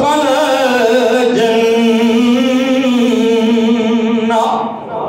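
A man's voice singing a drawn-out melodic phrase in a sermon's chanted style, wavering at first and then holding one long note before breaking off near the end.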